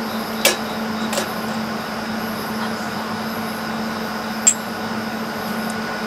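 Steady hum of a Hugos portable mini air conditioner running, with three sharp taps on top; the last and loudest, about four and a half seconds in, has a short bright ring.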